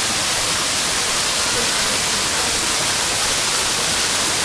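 Steady rushing of water, an even hiss with no separate splashes or calls.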